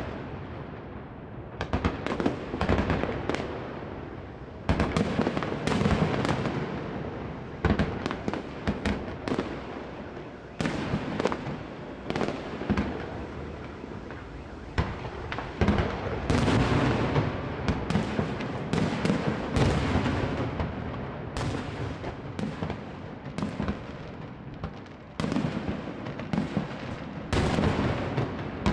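Aerial fireworks shells bursting in quick succession: many sharp bangs, some in rapid clusters, with echoing rumble between them.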